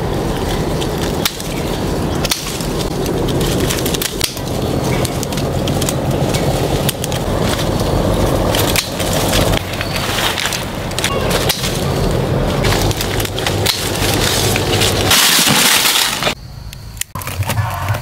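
Close rustling of leaves and twigs with many sharp cracks and snaps as clusters of berries are pulled off a fruit tree by hand. A loud rush of noise comes about fifteen seconds in, and the sound drops suddenly much quieter a second later.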